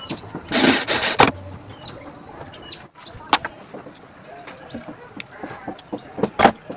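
A handful of sharp knocks, with a brief noisy scrape about half a second in, over a steady high hiss.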